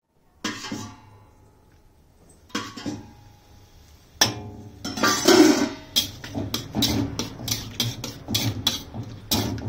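Metal spatula clanking and scraping against a large iron wok while chopped onions are stirred in oil. There are two single ringing metal knocks first, then a quick run of clanks, about two a second, through the second half.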